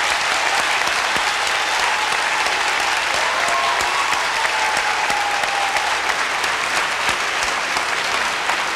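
A large auditorium audience applauding, with steady, sustained clapping from many hands.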